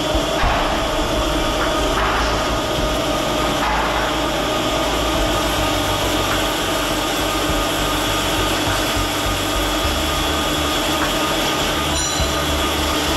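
Multi-spindle drilling machine with four spindles running: a steady mechanical hum carrying a few steady whining tones. The low rumble shifts about ten seconds in.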